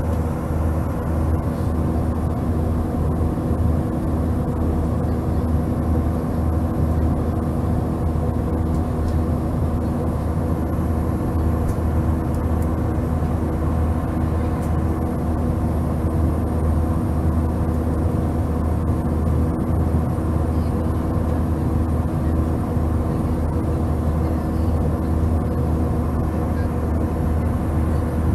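Steady cabin drone of a jet airliner in flight, from the turbofan engines and the airflow over the fuselage: a constant low hum with a few steady tones above it.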